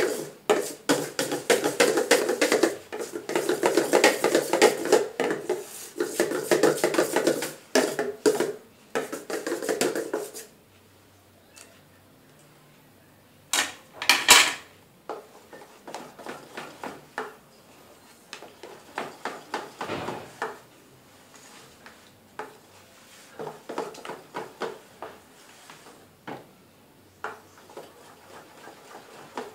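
A spoon beating banana cake batter fast against the sides of a stainless steel mixing bowl, a dense run of quick clicks for about ten seconds. After a short pause there are two loud knocks, then lighter, slower stirring taps against the bowl.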